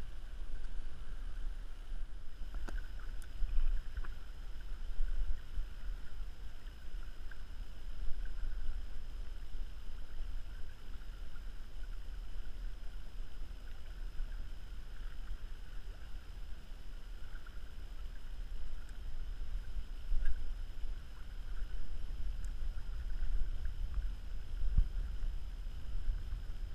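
Wind rumbling steadily on the microphone over small waves lapping against a plastic kayak's hull, with a few faint light knocks.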